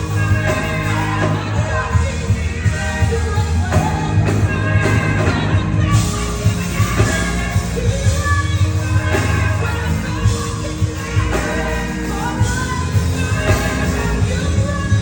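Live gospel worship music with singing, a steady beat and bass, heard in a large hall through the church's sound system.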